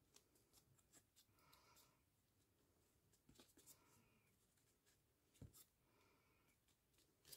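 Near silence, with faint rustles and small clicks of grosgrain ribbon being handled and wrapped around a cardboard template; one slightly louder click about five and a half seconds in.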